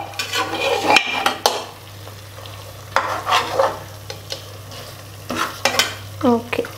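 Slotted steel spatula stirring and scraping quail pieces through thick masala in an aluminium pressure cooker, in irregular strokes against the pot, as the masala sizzles.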